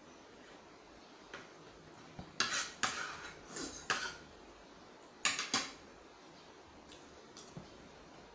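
Metal spoon and fork clinking and scraping against a china plate in irregular clatters, busiest a couple of seconds in, with two sharp clinks a little past the middle.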